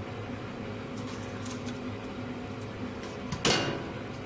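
Wood-fired boiler's draught fan running with a steady hum, while split logs are loaded into the firebox: a few light wooden clicks, then one loud knock of a log set down about three and a half seconds in.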